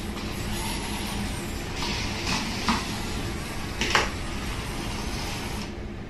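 A few light knocks and taps over a steady hiss: a small wheeled robot bumping and pushing a plastic ball across a tabletop. The loudest knock comes about four seconds in.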